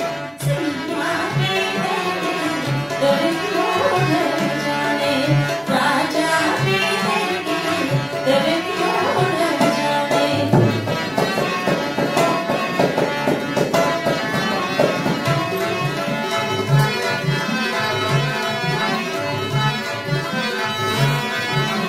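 Hindustani folk music on sarangi and tabla: the sarangi plays a winding, gliding melody over a steady tabla rhythm.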